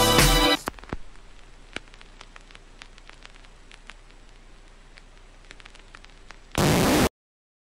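An electro-pop song stops abruptly about half a second in, leaving a faint static crackle with scattered clicks. Near the end a short, loud burst of static hiss cuts off suddenly into silence.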